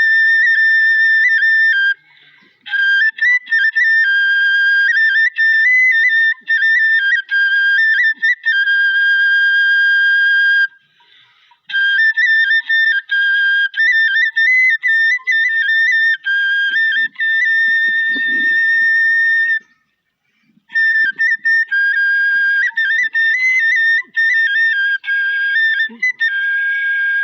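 A high, flute-like melody of stepped, held notes, played in long phrases broken by short pauses.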